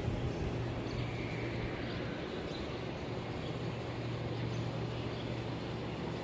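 Steady city background noise with a low, even hum.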